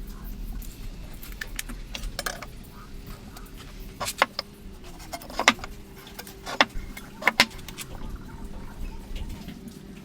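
Sharp knocks and clicks of wooden poles and hand woodworking tools being handled, a few at a time with short pauses, over a low steady hum.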